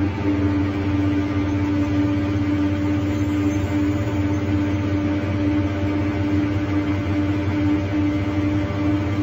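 Scania K310 articulated bus's rear-mounted DC09 five-cylinder diesel engine running steadily at an unchanging pitch, heard from inside the passenger cabin.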